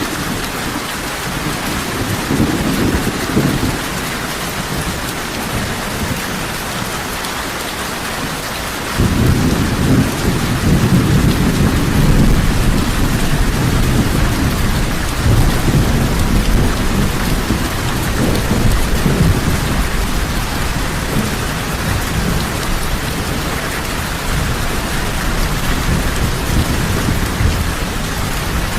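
Heavy rain falling steadily, with low rolling thunder that comes in suddenly about nine seconds in and keeps rumbling.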